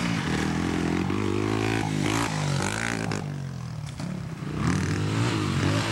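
Dirt bike engine running and being revved, its pitch rising and falling several times.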